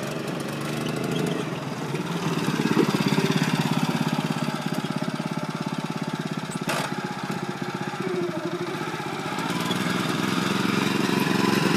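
Small engine of a ride-on mini car running as it drives, its rapid even beat swelling louder and easing off as it goes, with a single sharp click a little past the middle.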